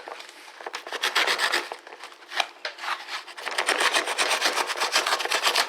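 A blade sawing and scraping through a glued cardboard shipping box: quick rasping strokes in several runs, the longest in the second half.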